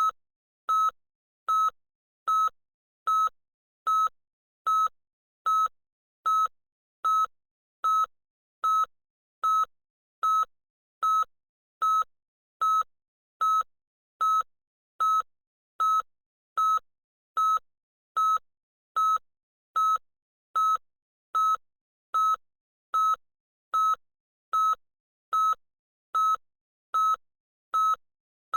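Loud electronic beep: a short, high single-pitched tone repeating evenly, a little more than once a second.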